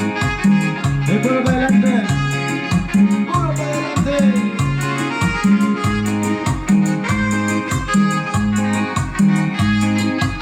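A band playing an upbeat Mixtec dance song: a steady beat with bass notes alternating between two pitches, and a melody line that glides in the first few seconds.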